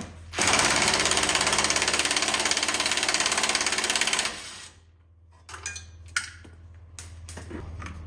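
A power tool runs in one burst of about four seconds with a fast, even hammering rattle. It then stops, and a few light clicks and clinks follow.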